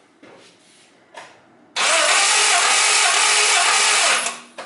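Four-cylinder petrol engine cranked on its starter motor with all spark plugs removed, for a compression test on cylinder one: about two and a half seconds of loud, steady cranking that stops suddenly, after a couple of faint knocks. The cylinder builds normal compression, about 9 bar.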